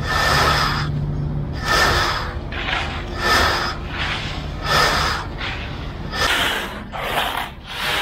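Screed board sawed back and forth across stiff, freshly poured concrete, giving a scraping rasp about every second and a half, six strokes in all. A low steady rumble runs underneath.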